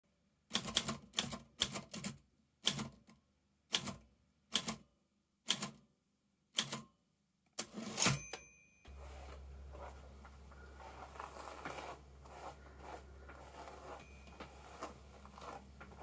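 Manual portable typewriter typing about a dozen separate keystrokes at an unhurried, uneven pace, then a louder clatter with a brief bell-like ring about eight seconds in. After that the typing stops and a steady low hum with faint outdoor background noise takes over.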